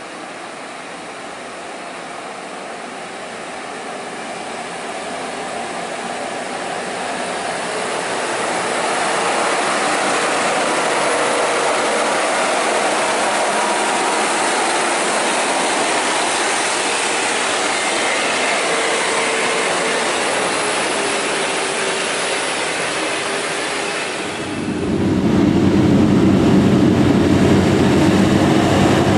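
Loaded Scania truck's diesel engine pulling hard up a steep climb, growing louder over the first ten seconds and then running steadily. About 24 seconds in, the sound cuts to a closer, deeper and louder engine drone.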